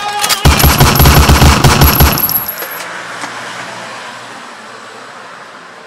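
A loud burst of rapid machine-gun fire, about five shots a second for two seconds, with a thin high whine over it, then dying away over about a second.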